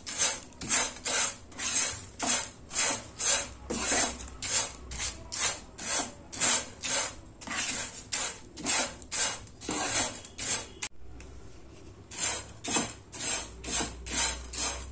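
A spatula stirring dry poha (flattened rice flakes) around a non-stick pan as they dry-roast, giving quick scraping, rustling strokes about two to three a second. The strokes pause briefly about eleven seconds in, then resume.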